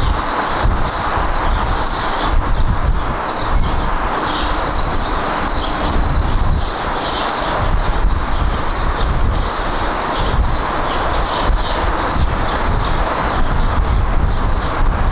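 Steady jet airliner engine noise with a low rumble, with birds chirping repeatedly over it.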